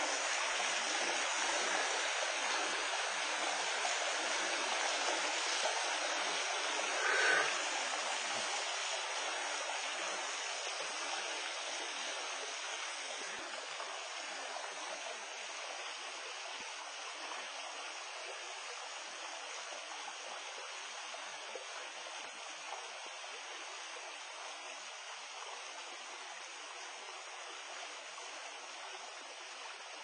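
A small waterfall cascading over rocks into a pool: a steady rush of falling water that slowly grows fainter. One brief, sharper sound stands out about seven seconds in.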